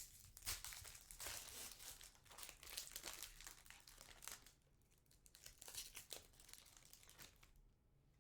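Crinkling and tearing of a foil trading-card pack wrapper being opened and handled, dense for about four seconds, then a second spell of crinkling before it dies away near the end.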